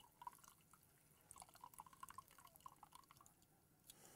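Water from a squeezed sponge dripping and trickling into a plastic measuring cup, faint. The drops come quickly for about three seconds, then thin out.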